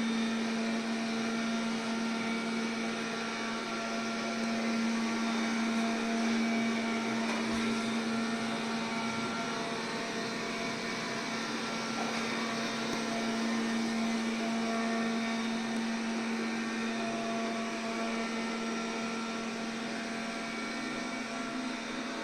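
MOVA robot vacuum cleaner running as it cleans the floor: a steady whir of its suction motor over a constant low hum, swelling and easing slightly as it moves about.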